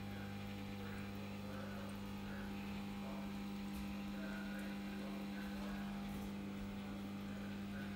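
Steady low electrical hum, a deep drone with a higher tone above it, held unchanged throughout.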